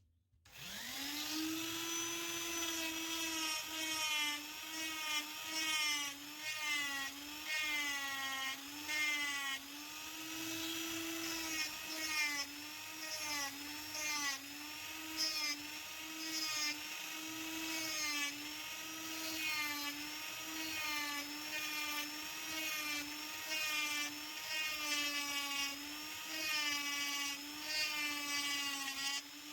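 A small high-speed electric rotary tool spins up about half a second in and then works wood, its whine sagging in pitch and recovering again and again as it is pressed into the workpiece and eased off.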